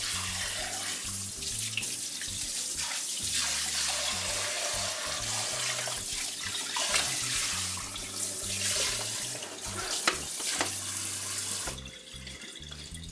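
Pull-out kitchen sink sprayer running cold water over slabs of pork spare ribs in the sink, a steady spray that shuts off about a second before the end.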